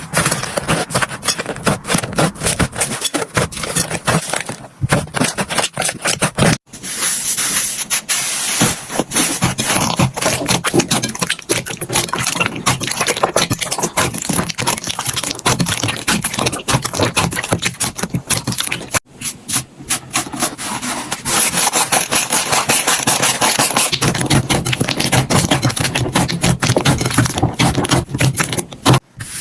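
Slime being squeezed, poked and stretched by hand, a dense stream of wet crackling and popping clicks. It breaks off abruptly twice and starts again.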